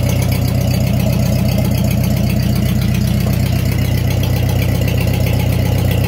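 Ford 8N tractor's four-cylinder flathead engine idling steadily.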